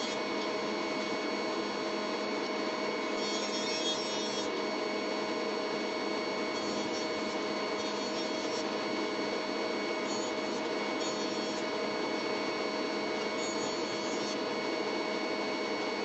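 Jointer running steadily, its cutterhead taking passes on wooden boards: four stretches of hissing cutting noise, each one to two seconds long, over the machine's constant hum.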